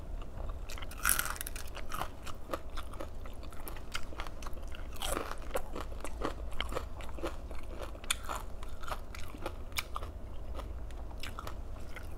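Chewing and biting through crispy fried galunggong (round scad): a continuous run of small, irregular crunches, with louder crunches about a second in and about five seconds in.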